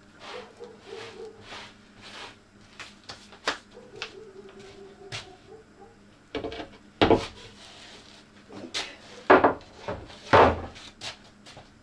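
Scattered clicks and knocks, then several loud thuds in the second half, as a fibreglass blade mould is handled and set down on a wooden workbench.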